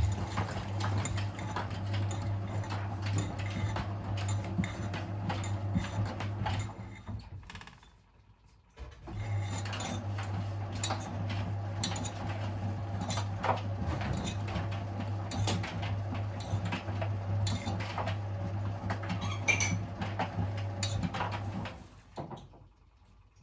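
Miele WS 5405 front-loading washing machine tumbling its drum in the Cottons 20 main wash: a steady motor hum under a constant clatter of knocks and clinks from the load of a jacket and trainers. The drum stops twice, about eight and twenty-two seconds in, as it pauses between turns.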